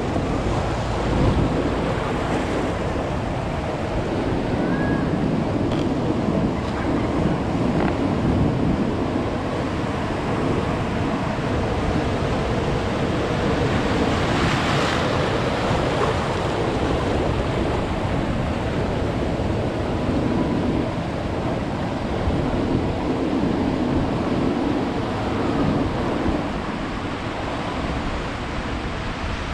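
Ocean surf: waves breaking and washing up the beach, with wind buffeting the microphone. One wave washes in louder about halfway through.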